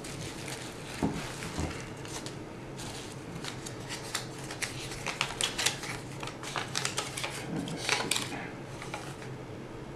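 Bubble wrap and tape crinkling and crackling as a package is unwrapped by hand: a run of small, irregular crackles that is thickest between about three and eight seconds in, then dies away.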